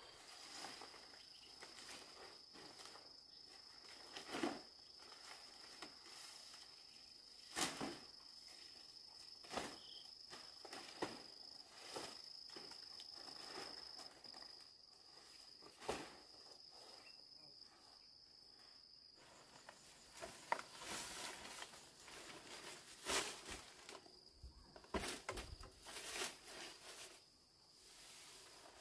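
An insect's steady high-pitched drone, with scattered knocks and clatter of things being handled and moved, busier in the last several seconds.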